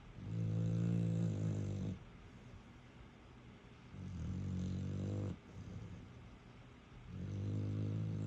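Staffordshire bull terrier snoring loudly: three long, low snores, about three and a half seconds apart.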